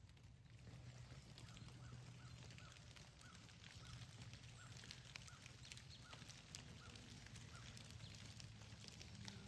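Rain dripping from the trees in a wet, foggy woods: many faint, scattered ticks of drops, over a steady low hum. A faint string of short high notes repeats through the middle of it.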